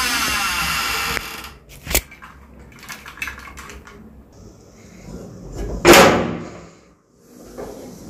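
Door handling: a steady hiss cuts off about a second in, a sharp click follows, then a few light knocks, and near six seconds comes the loudest sound, a brief scraping bang of a metal door being swung on its hinges.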